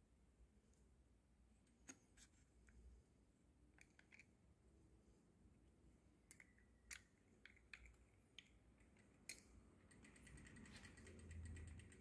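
Faint scattered clicks and taps of a plastic hand wheel being handled and pushed onto the shaft of an industrial sewing machine head. Near the end comes a faint, quick run of mechanical ticking as the hand wheel turns the machine over.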